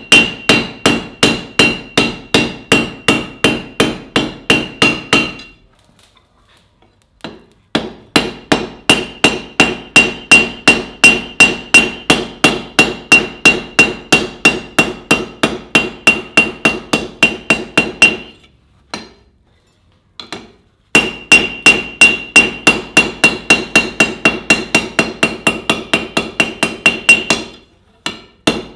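Hand hammer striking steel on an anvil in steady runs of about three ringing blows a second, each blow leaving a high metallic ring, with two short breaks in the hammering and a brief one near the end.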